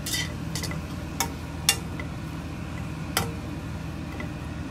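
A slotted spatula scraping and tapping against a non-stick frying pan while diced pork and potatoes are stirred, with about half a dozen sharp scrapes and clicks, the loudest about a second and a half in. A steady low hum runs underneath.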